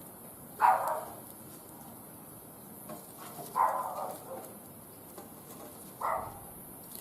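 An animal calling three times, about three seconds apart, each call short and loud over a steady low hiss.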